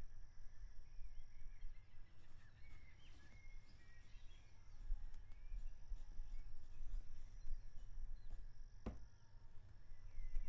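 Quiet bush ambience heard from inside a bird hide: a low rumble under faint chirping bird calls, with a single sharp tap about nine seconds in.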